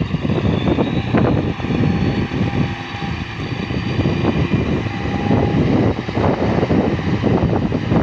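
Diesel engine of a wheel loader or bulldozer running steadily, with wind buffeting the microphone.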